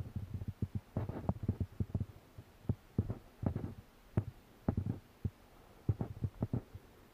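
Irregular dull thumps and knocks, several a second, from handling while a baitcasting reel is cranked on a bent fishing rod.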